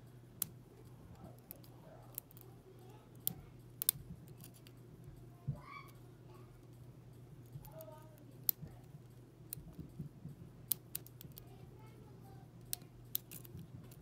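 A lock pick and tension wrench working the pin tumblers of a brass S&L padlock, which the picker believes holds only standard pins: small, sharp metallic clicks at irregular intervals over a faint steady hum.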